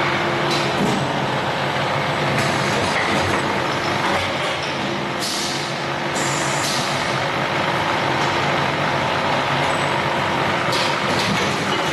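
Rotor aluminium die-casting machine running: a steady mechanical hum broken by several short hisses of compressed air as its pneumatic cylinders move.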